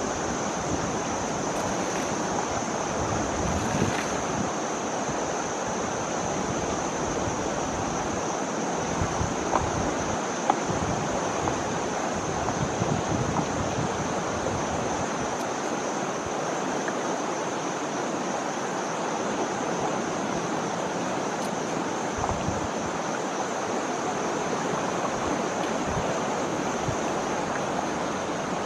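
River water flowing and rushing steadily, with a steady high-pitched whine above it and a few small sharp ticks about nine to ten seconds in.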